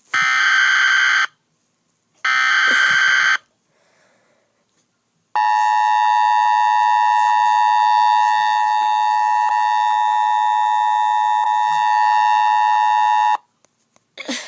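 Emergency Alert System tones: two buzzy bursts of about a second each (the SAME digital header) open the alert. After a short pause comes the EAS two-tone attention signal, held steady for about eight seconds before it cuts off.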